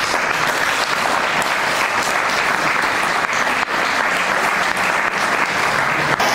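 Audience applause, a dense steady clapping that starts suddenly and cuts off sharply near the end.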